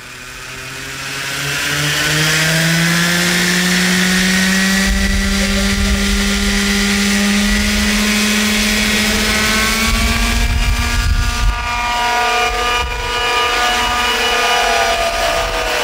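Twin-engine remote-controlled model helicopter running up: the engine note climbs steadily in pitch and loudness over the first couple of seconds, then holds high as it lifts into a hover. A gusty low rumble joins in from about five seconds in.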